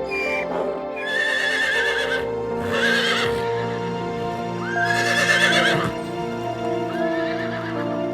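Horse whinnying: about four quavering, wavering neighs in a row, the loudest about five seconds in, over steady background music.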